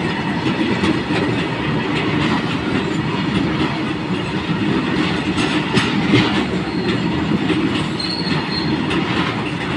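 Steel wheels of a passing freight train's open-top wagons rumbling and clattering steadily over the rails close by, with sharp clicks at rail joints and a brief high wheel squeal about eight seconds in.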